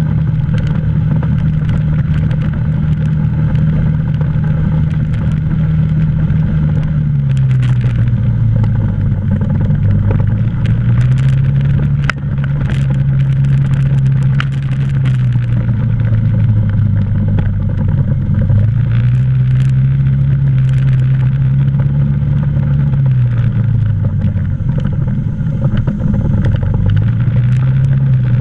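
ATV engine running while riding a dirt trail, its note dropping lower about a quarter of the way in and again near the end, each time climbing back a few seconds later. Scattered clicks and rattles over the bumps.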